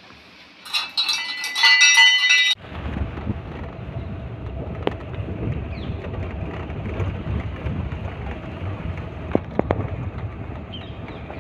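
A metal temple bell rung several times in quick succession, with clear ringing tones. It cuts off abruptly to the steady low rumble of a moving vehicle with wind noise, with a couple of faint clicks near the end.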